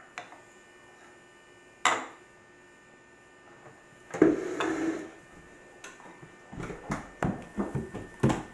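Quiet room tone with a steady electrical hum. A spoon clinks once against a cereal bowl, and a run of soft knocks follows near the end.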